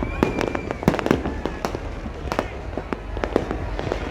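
New Year's fireworks and firecrackers going off in a dense, irregular string of sharp bangs and pops over a steady low rumble. A brief high whistle sounds shortly after the start.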